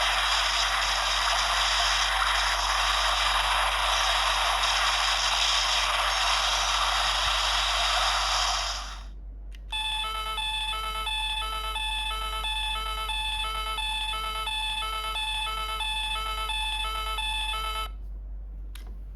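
Electronic sound effects from an Ultraman Trigger Guts Sparklence transformation toy. A loud, hissing energy effect runs for about nine seconds and breaks off. After a short pause, a looping electronic beeping pattern repeats a little under twice a second until it stops near the end.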